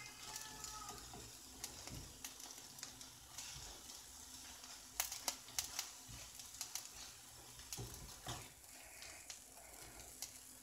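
Egg and cheese sizzling faintly in a nonstick frying pan on low heat, with light scrapes and taps from a silicone spatula stirring it, several of them close together about five to six seconds in.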